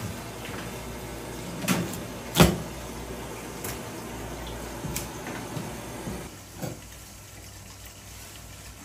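Kitchen work sounds: a few sharp knocks and clatters, the loudest about two and a half seconds in, over a steady background noise that drops off about six seconds in.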